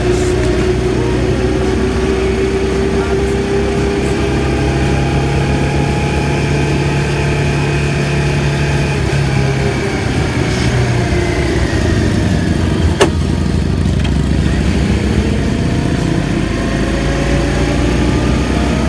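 Motorcycle engine running steadily, its note drifting slowly up and down, with a single sharp click about thirteen seconds in.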